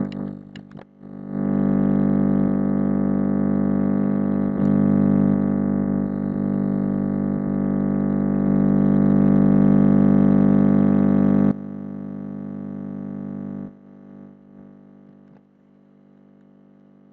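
A loud, steady buzzing drone with many overtones, starting about a second in and cutting off suddenly past the middle, with a fainter stretch of it lasting a couple of seconds more.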